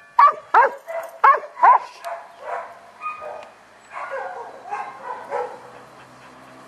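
Dog barking close by: four loud, sharp barks in quick succession in the first two seconds, then weaker barks and yips that fade out about five and a half seconds in.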